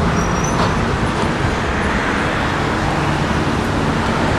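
Steady road traffic noise: passing cars and engines making a continuous rushing sound with a low hum underneath.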